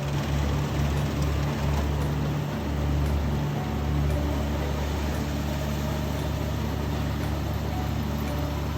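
Engine of a rice-harvesting machine running steadily at a constant low hum, swelling a little in its first few seconds.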